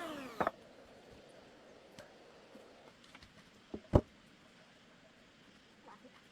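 A few sharp knocks against a quiet background, the loudest about four seconds in. At the very start, a pitched sound gliding downward fades out.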